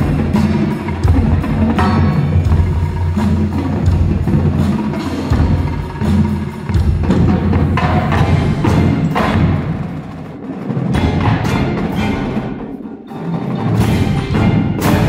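Indoor percussion ensemble playing: marimbas and other mallet keyboards with drums and hand cymbals over a strong low bass, with a loud crash near the end.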